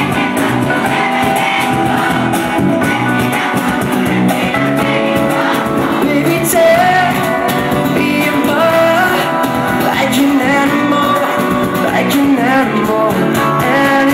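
Live acoustic pop band playing: a male lead singer with acoustic guitars, his sung melody wavering and sliding across held notes.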